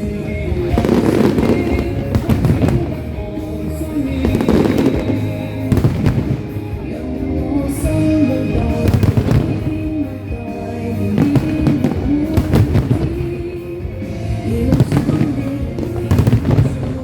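Fireworks display: repeated bangs and crackling bursts coming in waves every few seconds, over music with a melody playing along.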